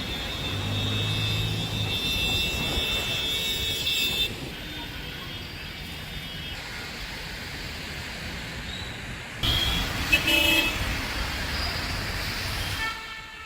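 Road traffic noise with car horns sounding: a long held horn for the first four seconds, then another burst of horns about nine and a half seconds in.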